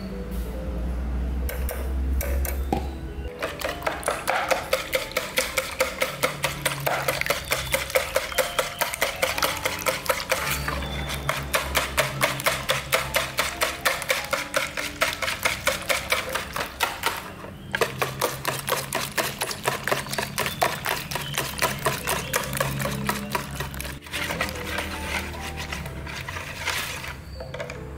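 Wire balloon whisk beating eggs in a plastic bowl: a rapid, even run of clicking, swishing strokes of the wires against the bowl, stopping briefly twice. Background music plays underneath.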